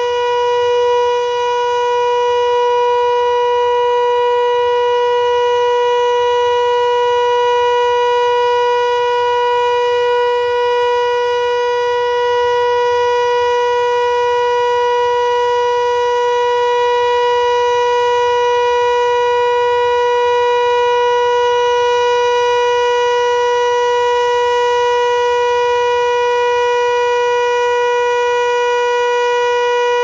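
Landert MSL-6 11 kW electric motor siren sounding one steady, unbroken tone at constant pitch: the Austrian civil-defence 'Entwarnung' all-clear signal.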